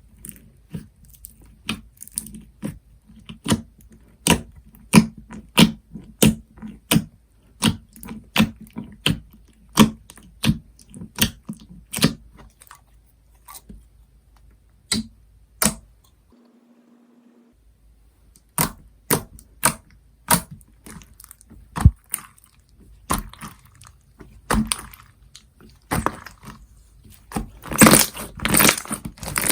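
Slime being squeezed and pressed by hand, giving a series of sharp pops and clicks about twice a second. After a short pause the pops return, and near the end they run together into denser crackling.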